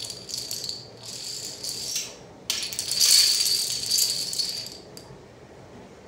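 Toy dominoes toppling in a chain reaction and clattering onto a tile floor, in three waves of rattling clicks. The longest and loudest wave comes from about two and a half to five seconds in, as the stacked towers collapse, and then the clatter dies away.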